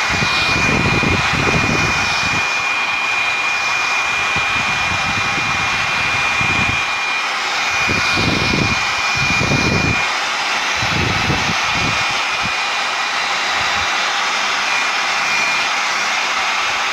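Oster hair dryer running, a steady rush of air with a thin high whine, blowing over a circuit board to dry off the cleaning solvent. The air stream comes in uneven low gusts as it is swept about.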